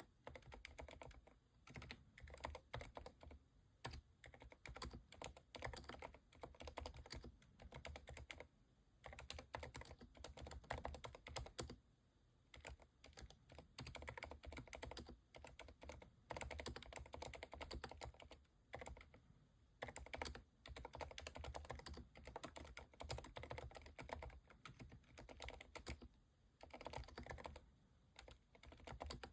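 Keychron V10 Pro Max mechanical keyboard with Cherry MX2A Silent Red and TTC Silent Brown switches, typed on in fast, continuous runs of soft, damped keystrokes with brief pauses. The clicks are quiet, as expected of silent switches.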